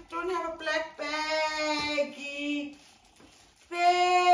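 A high voice singing long held notes, breaking off briefly about three seconds in and then coming back.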